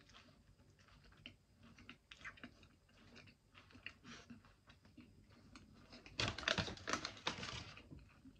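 A person chewing a mouthful of beef burger, close to the microphone: soft, irregular wet mouth clicks and squelches. About six seconds in there is a louder, noisier stretch of about two seconds.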